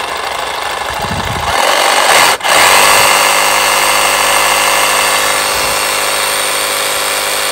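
Milwaukee M18 FUEL Hackzall brushless one-handed reciprocating saw running with no load, speeding up about a second and a half in, cutting out for an instant a little after two seconds as the trigger is let go, then running steadily at full speed.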